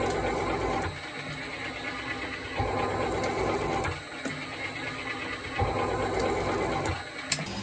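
Metal shaper running, its tool cutting a steel bar clamped in the vise, with a louder spell of about a second on each stroke of the ram, roughly every three seconds.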